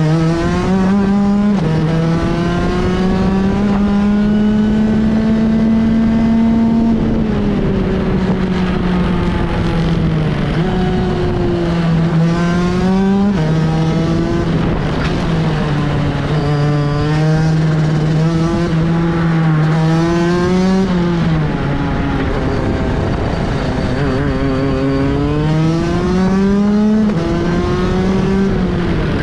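Racing kart engine heard from onboard, rising in pitch as it accelerates out of corners and dropping sharply when the driver lifts and brakes, several times over as the lap goes on.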